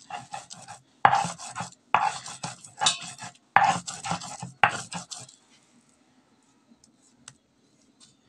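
Sesame seeds being ground wet on a stone sil-batta: the hand stone is rubbed back and forth across the flat grinding stone, a rhythmic gritty scraping in strokes about a second apart. The scraping stops about five seconds in, leaving only a faint click or two.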